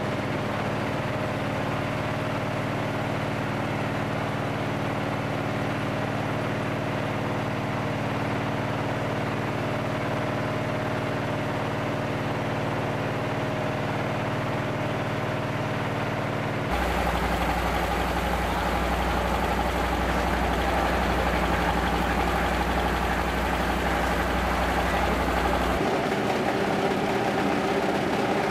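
Power rice thresher driven by a small single-cylinder diesel engine, running steadily as rice straw is fed into it. About two-thirds of the way through, the sound changes abruptly and becomes louder and rougher, with a deep hum that drops out near the end.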